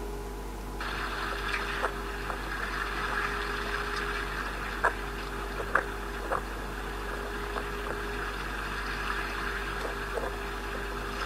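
Water lapping and sloshing, starting abruptly about a second in, with a few sharp clicks, over a low steady hum.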